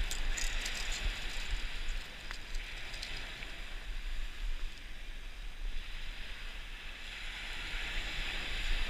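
Wind rumbling on the microphone over the steady hiss of surf washing up the beach, with a few faint clicks in the first second.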